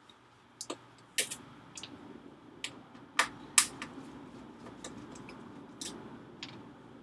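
Irregular sharp clicks and taps of a T10 Torx driver and screws being worked on an iMac's power supply, about a dozen over several seconds.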